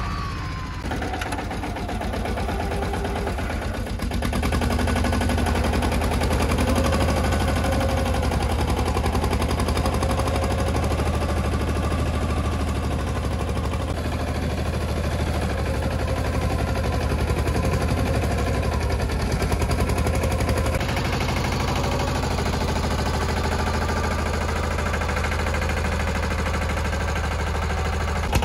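Escort Steeltrac 15 mini tractor's diesel engine chugging under load with a rapid, even exhaust beat as it pulls a chisel plow through dry soil. It gets louder about four seconds in.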